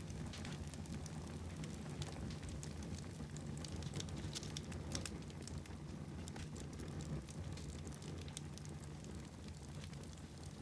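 Wood fire burning in a fireplace, crackling with frequent irregular small pops over a steady low rumble.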